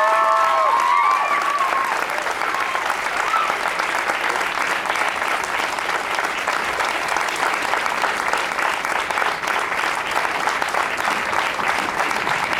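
Audience applauding steadily, with a few voices calling out and cheering in the first couple of seconds.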